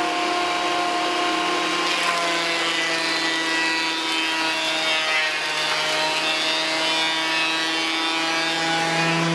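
Benchtop thickness planer running with a steady whine. Its pitch sags about two seconds in as a board feeds through and loads the motor, then comes back up near the end.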